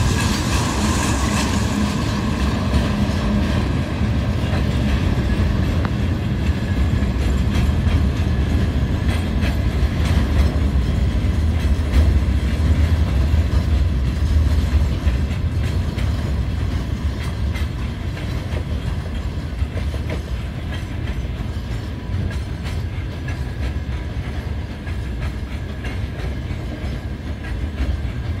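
Freight train wagons rolling past close by: a steady low rumble of wheels on rail with a running clickety-clack of wheelsets crossing rail joints.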